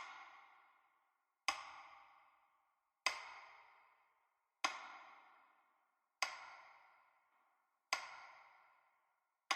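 A ringing struck tone repeated evenly about every second and a half, each strike sharp at the start and dying away before the next; about six strikes.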